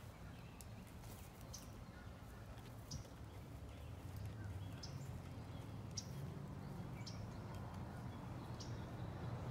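A bird repeating a short, high chirp about every second and a half, over a low, steady outdoor rumble.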